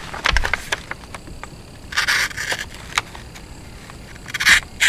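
Small automatic switchblade knife being handled: scattered sharp clicks, with two short scraping sounds about two seconds in and near the end.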